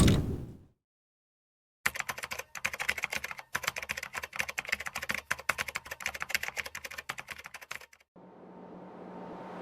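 Computer keyboard typing sound effect: a rapid, irregular run of key clicks lasting about six seconds. It is followed by a rising swell of hiss near the end.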